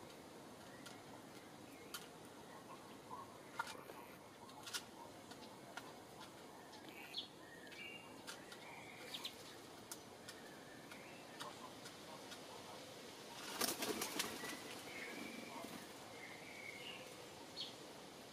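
Eurasian collared dove's wings flapping at a feeder bowl, with a loud burst of wingbeats about two-thirds of the way through, fitting the dove taking off. Scattered small clicks and a few faint short high calls run through the rest.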